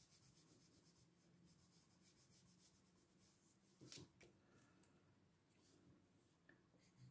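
Faint scratching of an oil pastel on paper, quick back-and-forth colouring strokes that stop about a second in, followed by a single soft knock about four seconds in.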